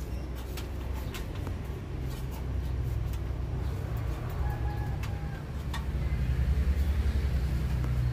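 A low engine drone that grows louder in the second half. Over it come scattered clicks and rustles of handling and climbing, and a faint short bird call about halfway through.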